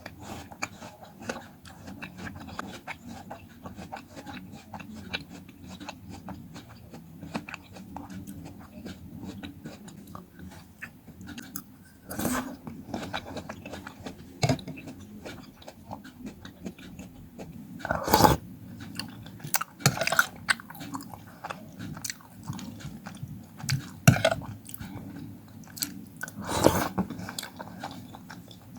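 Close-up chewing and biting of fruit, a steady wet chewing with several louder crunchy bites about 12, 18, 20, 24 and 27 seconds in.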